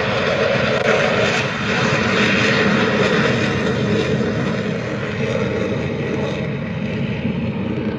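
Military jet engine noise from an aircraft flying past, a loud steady rush that slowly fades.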